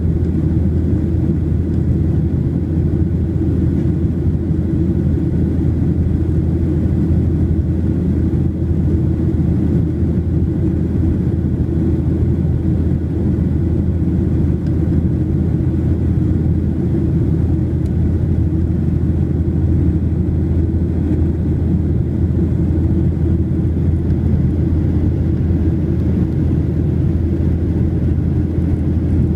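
Steady low rumble of a Boeing 737-800 in flight, its CFM56-7B engines and the airflow heard inside the passenger cabin.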